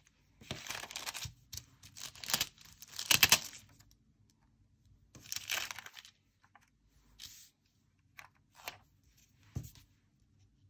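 Paper stickers being peeled from their backing and a thin translucent sticker sheet crinkling as it is handled, in a string of short bursts, the loudest about three seconds in.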